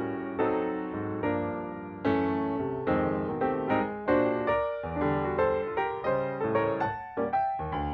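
Background piano music: notes and chords struck and left to ring, in an even rhythm.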